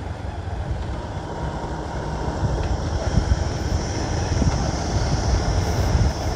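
A vehicle on the move: a steady low rumble of engine and road noise, with no sharp events.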